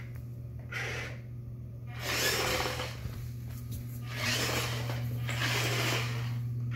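Small R-series astromech toy droid driving on a hardwood floor, its drive motors giving a steady low hum. Several short breathy hissing bursts, each about half a second to a second long, come over the hum.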